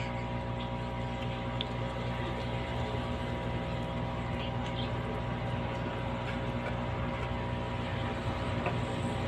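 Aquarium pump humming steadily, a constant electric hum over a soft hiss.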